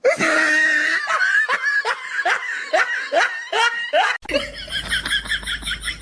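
A person laughing in a run of short bursts, each falling in pitch. About four seconds in, it cuts off abruptly to a different, fast even pulsing sound over a low hum.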